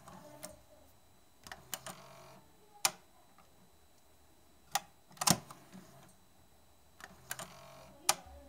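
TEAC V-8030S cassette deck's cassette door being opened and pushed shut: sharp plastic clicks and clacks of the eject and door latch, in small groups every couple of seconds, a few followed by a brief whir.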